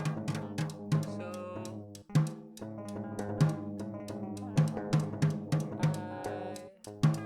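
Drum kit played over a dense layer of sampled, pitched sounds triggered by typing on a computer keyboard mapped in Soundplant, with kick and snare hits. The whole mix cuts out briefly about two seconds in and again near the end.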